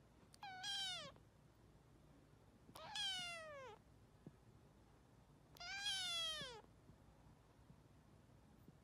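Kitten meowing three times: high meows about a second long, each falling in pitch, a couple of seconds apart.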